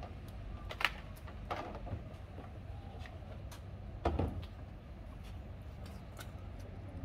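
Occasional light knocks and clicks of spraying equipment being handled: a hose being coiled and a plastic sprayer tank moved on a pickup truck's bed, the loudest knock with a dull thud about four seconds in. A low steady hum runs underneath.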